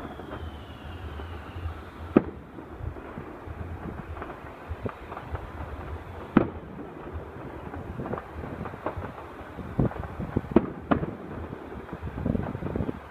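Fireworks going off: a string of bangs and crackles, with sharp reports about two seconds in and again about six seconds in, and a thicker run of crackling toward the end.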